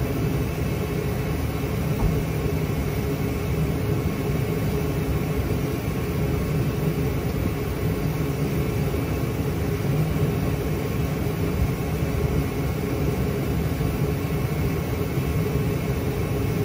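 A steady, low mechanical drone with a hum of several steady tones, unbroken throughout. A single short knock comes about two seconds in.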